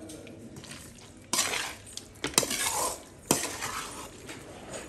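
Perforated metal spatula stirring mutton liver in a metal pot, scraping along the pan and clinking against its side. The scraping starts about a second in, with sharp clinks a little past two seconds and at about three seconds.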